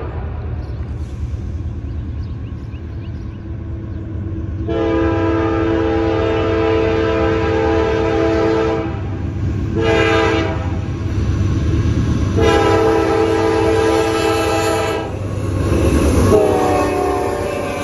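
Norfolk Southern freight locomotive's multi-chime air horn sounding a long blast, a short one and another long one, the grade-crossing signal, over the low rumble of the approaching diesel train. Near the end the horn sounds once more and its pitch drops as the lead locomotive passes close by.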